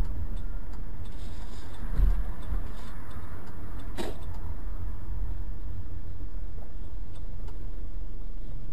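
Steady low rumble of a car driving, with a thump about two seconds in and a single sharp click about four seconds in.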